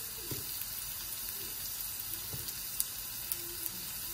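Chopped onion sizzling in hot olive oil in a non-stick frying pan: a steady frying hiss with a few small pops from the oil.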